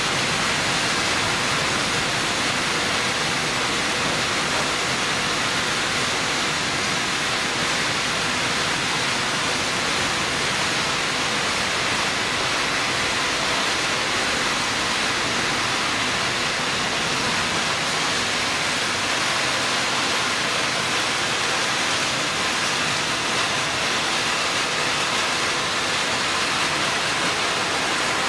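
Radiator recycling production line running, its crusher and air-separation system giving a steady, even hiss with no distinct knocks.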